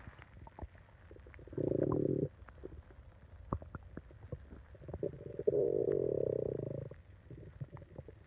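A person's stomach growling: a short low growl about a second and a half in, then a longer one lasting about two seconds, with faint gurgles and clicks between them.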